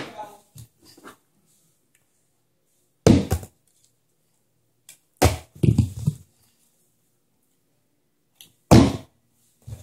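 Small plastic bottles flipped and landing on a hard floor: a single knock about three seconds in, a quick run of clattering knocks and bounces around five to six seconds, and another sharp knock near the end.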